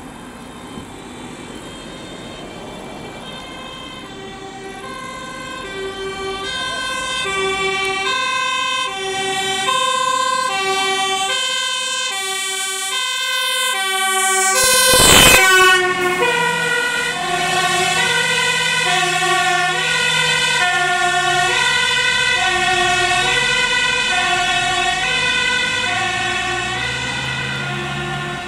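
MAN fire engine sounding a two-tone siren, alternating high and low notes, growing louder as it approaches. About halfway through it passes close with a loud rush, and the siren drops in pitch as it drives away, its diesel engine heard underneath.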